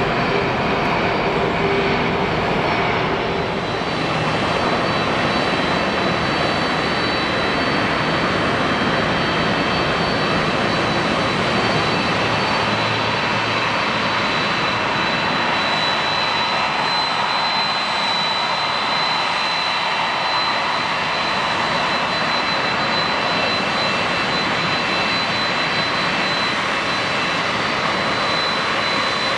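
Boeing 767-300 airliner's twin jet engines running: first the rush of the landing roll-out, then, a few seconds in, a steady high whine over constant rushing as the engines turn at taxi power.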